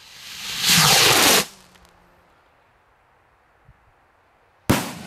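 A 20 mm firework rocket launching: its motor hisses, builds to a loud rushing whoosh, and cuts off sharply about a second and a half in. About three seconds later the shell bursts with one sharp bang, followed by fading echoes.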